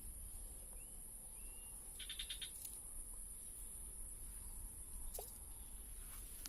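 Steady high-pitched drone of insects from the surrounding vegetation, with a short rapid chirping call about two seconds in and a brief falling whistle about five seconds in.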